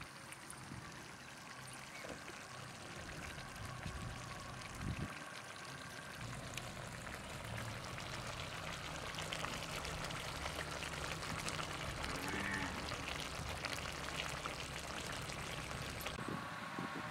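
Curry simmering in a steel pot over a wood fire: a steady bubbling hiss with many small crackles, growing slowly louder.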